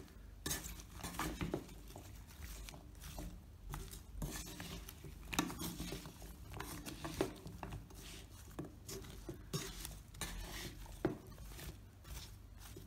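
Wooden spatula stirring raw vegetable strips in a pot: irregular scraping and clicking of the spatula against the pot and the vegetables, with no sizzle.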